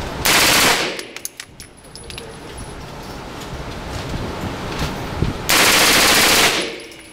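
Machine gun firing two short fully automatic bursts, the first about a third of a second in and a longer one of about a second near the end. Each burst echoes briefly in the indoor range.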